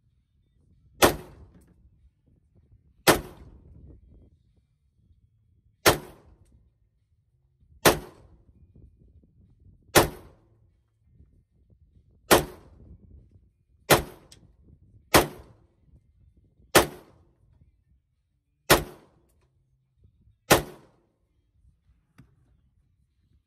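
AR-15 pistol with a 10-inch 5.56 barrel fired semi-automatically with steel-cased .223 ammunition: eleven sharp shots at an unhurried pace, one every one to three seconds, each with a brief echo.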